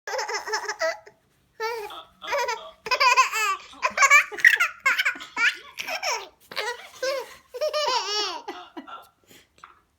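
A person laughing hard in repeated high-pitched bursts, each broken into quick pulses, with a short pause for breath about a second in.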